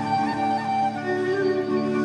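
Ney, the end-blown reed flute, playing a slow improvised taqsim in maqam Hijaz in long held notes, over a steady low drone.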